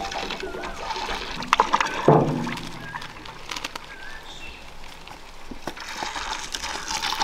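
Cooking oil poured in a thin stream from a metal tin into a wok of oil, a steady pouring hiss, with a sharp knock about two seconds in and a few short bird chirps.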